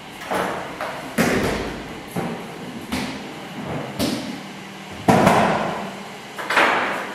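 A series of dull thumps and knocks, roughly one a second at uneven spacing, each with a short ringing tail; the loudest come about a second in and about five seconds in.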